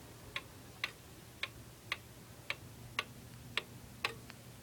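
Spring-driven pendulum movement of a D&A 31-day wall clock ticking steadily, about two ticks a second.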